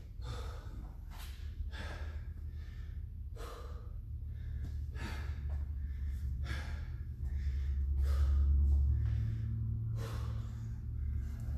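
A man panting hard from exertion after handstand push-ups: quick, heavy breaths, more than one a second. A steady low hum runs underneath and grows louder past the middle.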